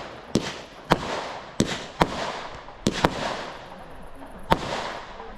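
Fireworks display: a rapid string of sharp bangs from shells bursting, about seven in five seconds at uneven spacing, each trailing off in a fading tail.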